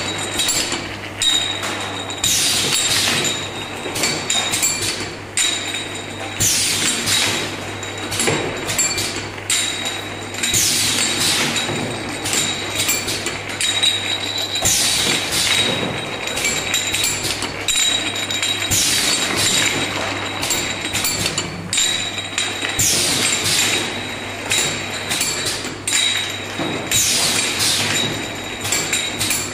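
Two-head pneumatic piston filling machine running through its filling cycles: glass jars clinking on the conveyor and mechanical knocks, with a burst of hissing about every four seconds over a steady low hum.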